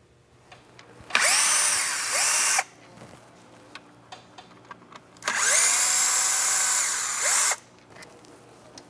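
Cordless drill-driver backing out the bolts that hold the reed boots on a Ski-Doo E-TEC two-stroke engine. It runs twice, for about one and a half seconds and then about two seconds, its whine rising as the motor spins up and falling as it stops. Small clicks of the bolts and parts being handled sound between and after the runs.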